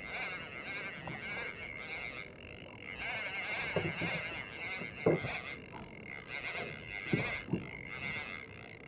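Conventional jigging reel being cranked by hand, with a steady high whirring and a few short low knocks as the gloved hand works the handle.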